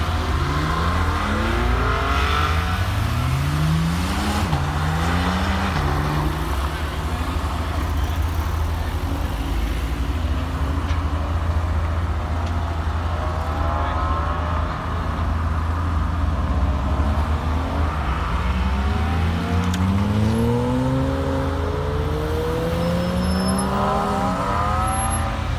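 Porsche sports cars pulling away and accelerating one after another, each engine note climbing, dropping at a gear change and climbing again; this happens three times, over a steady low rumble of idling engines.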